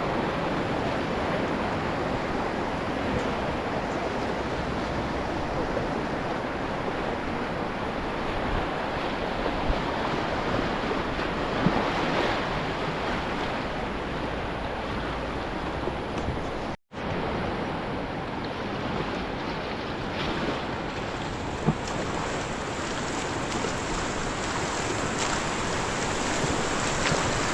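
River water rushing and churning around a raft, with wind buffeting the microphone. There are a few faint knocks, and the sound cuts out for an instant about two-thirds of the way through.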